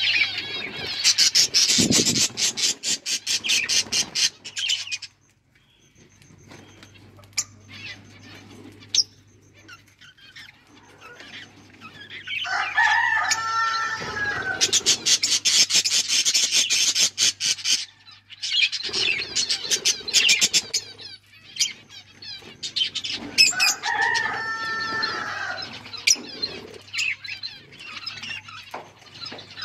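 Pet budgies chirping and chattering, with two long bursts of rapid, high-pitched calls and a couple of longer, rising-and-falling squawks between them.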